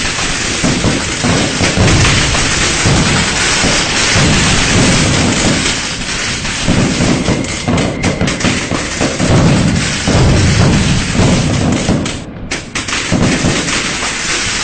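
Dense, unbroken barrage of firecrackers going off: many overlapping cracks over deep booms, dipping briefly near the end.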